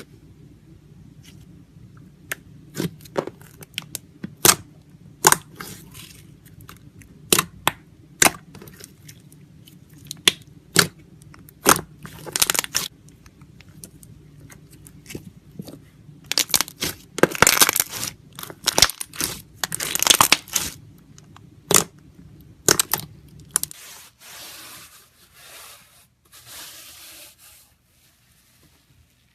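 Slime being pressed, stretched and squeezed by hand: a run of sharp pops and snaps, with longer crackling stretches past the middle, then softer squishing near the end.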